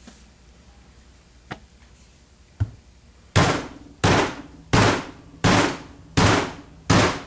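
Repeated blows on a phenolic plastic seal driver, driving a crankshaft seal into a Yamaha Blaster's aluminium crankcase: a light knock, then, from about halfway in, six evenly spaced sharp blows about two-thirds of a second apart, each ringing briefly.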